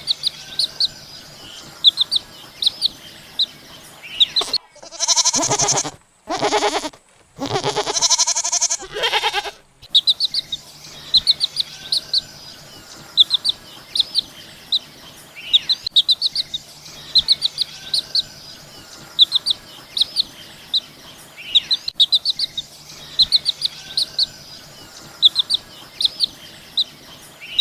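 Small birds chirping in quick, high series over and over. Three loud, drawn-out calls from a farm animal stand out between about four and ten seconds in.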